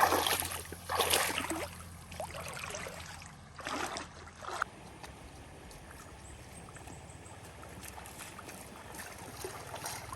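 Water splashing and sloshing in two short bursts, one at the start and one about four seconds in, then a quieter steady trickle of running water.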